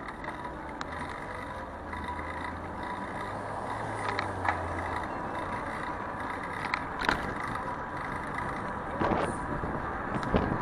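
City street traffic heard from a moving bicycle: a steady rush of road noise, with a motor vehicle's low engine hum passing through the first half and a few sharp knocks.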